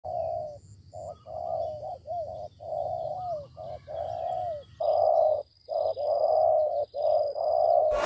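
Spotted doves cooing: a long run of low, mellow coo notes in quick succession, broken by short pauses.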